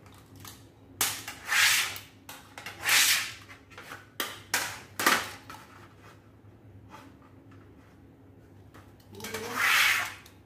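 Knife blade drawn along an aluminium sheet to score it for cutting: several scraping strokes, a pause of a few seconds, then one more stroke near the end.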